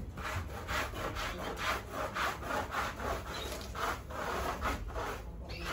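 A stiff hand brush sweeping the floor of an aviary, in repeated brushing strokes about three a second.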